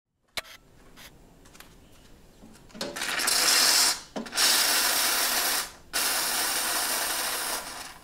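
Profitec Pro 800 lever espresso machine venting steam as its valve is opened: a few light clicks, then loud hissing in three stretches with two brief breaks.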